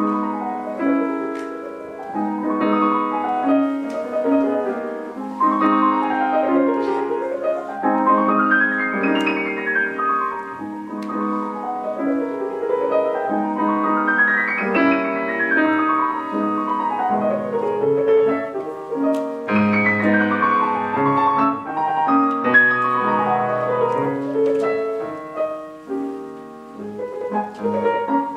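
Solo piano playing, with rippling runs of notes that sweep up and down the keyboard several times.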